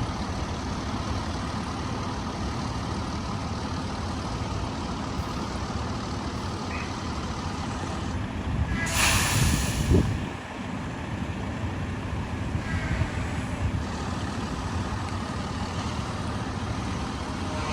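Heavy truck's diesel engine running steadily while it is manoeuvred, with a loud burst of hissing air about halfway through.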